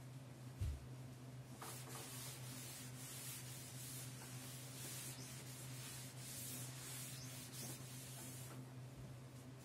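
Cloth duster wiping chalk off a chalkboard: repeated swishing rubbing strokes over a steady low hum, with a soft thump about half a second in.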